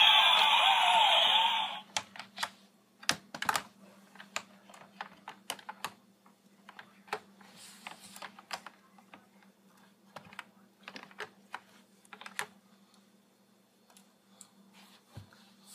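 A loud, high squeal from a child for about the first two seconds. Then scattered light clicks and clacks of hard plastic parts of a Chuck the Dump Truck toy playset being handled and moved.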